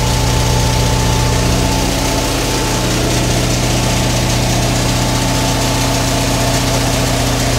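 Belt-driven air compressor of a compressed-air siren running steadily and loudly as a constant mechanical hum. It is refilling the siren's 6000-litre air tank and cuts out at 16 bar.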